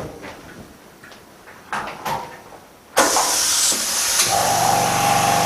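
OCA bubble remover machine started: a couple of short knocks as it is closed, then about three seconds in a sudden loud rush of air begins, and a steady humming motor tone joins it about a second later.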